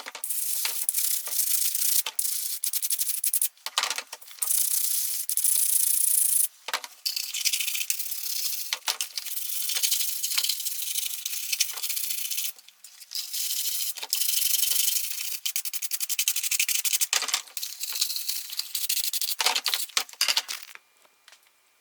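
Brush scrubbing toy parts in long stretches of rapid scraping strokes, broken by short pauses and a few light knocks, during cleaning.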